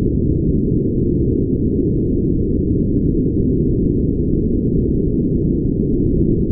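Brown noise: a steady, deep, muffled hiss with no high end, unchanging throughout.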